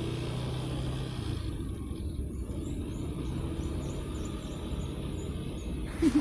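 Steady low outdoor rumble, with faint high chirps in the middle and a brief loud bump near the end.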